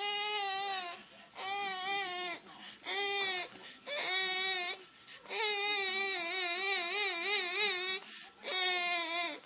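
Ringneck parakeet mimicking a crying baby: a string of high, wavering wails of about a second each, with one long quavering cry in the middle.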